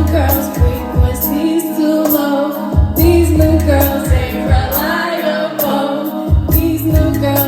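Live music: a female vocalist singing over a band backing of bass and drums, with regular cymbal hits.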